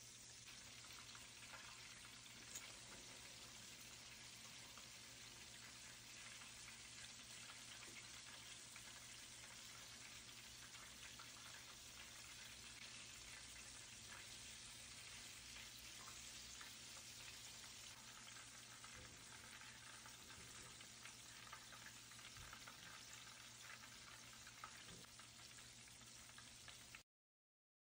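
Faint, steady sizzle and crackle of food deep-frying in hot oil in large woks, over a low steady hum. It cuts off suddenly near the end.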